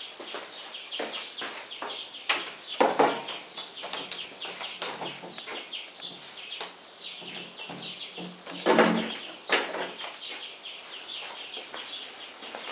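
Small birds chirping repeatedly in the background, short high chirps throughout, with a couple of louder bumps about three seconds in and again about nine seconds in.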